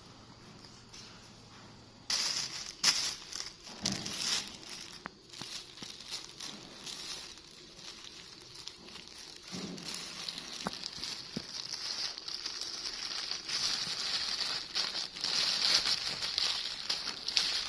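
Thin plastic bag crinkling and rustling as a baby monkey paws and crumples it, with many sharp crackles. It starts abruptly about two seconds in.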